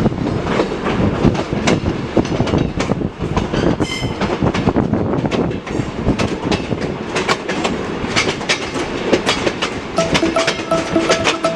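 Moving train: wheels clacking over rail joints amid a steady rumble and rattle, with a brief high squeal about four seconds in.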